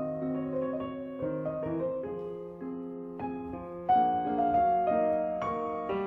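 Background piano music: a slow melody of held notes, with a louder chord about four seconds in.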